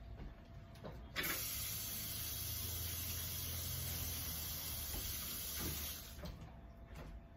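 Water running steadily from a tap, starting abruptly about a second in and cutting off about five seconds later.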